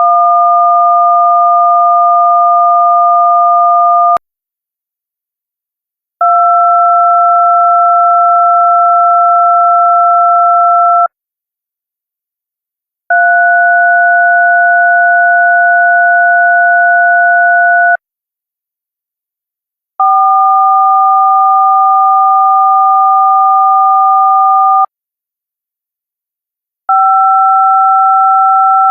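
DTMF touch-tone signals for telephone keys 1, 2, 3 and 4, each a steady two-tone beep lasting about five seconds, with about two seconds of silence between them. Key 5 begins near the end.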